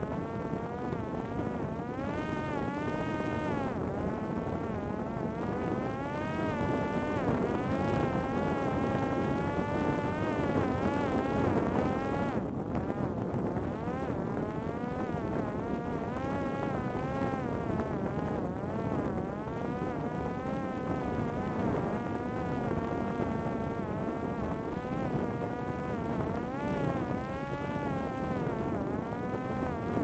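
Electric pusher motor and propeller of a Parrot Disco fixed-wing drone buzzing, its pitch wavering up and down continually as the throttle and airspeed change, over a steady rushing noise.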